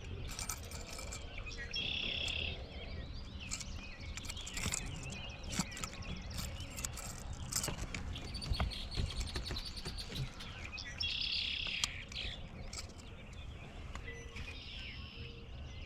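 Birdsong: a bird gives a short, high phrase twice, about 2 and 11 seconds in, with other scattered chirps and clicks over a steady low rumble.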